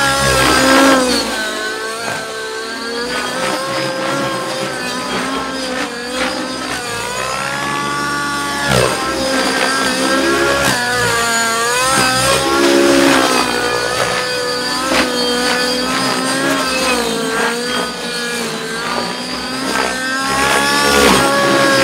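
Nitro glow engine of a radio-controlled helicopter running at full power in aerobatic flight, its pitch rising and falling constantly as the load changes, with the rotor blades whooshing.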